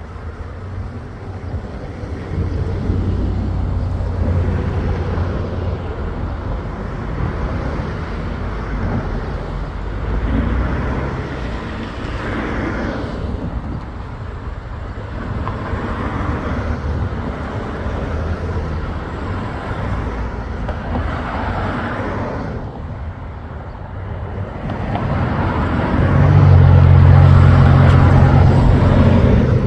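Road traffic: motor vehicle engines running and passing, a steady low hum that swells a few times and is loudest near the end.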